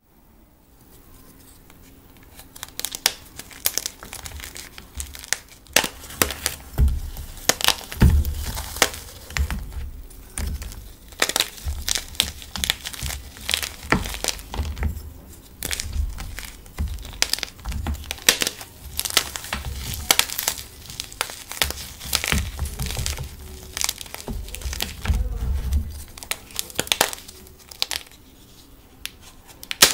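Brick-hard gym chalk blocks, filled with glitter and coloured sand, crushed and crumbled by hand: dense, irregular crunching and crackling with low thuds, starting about two and a half seconds in.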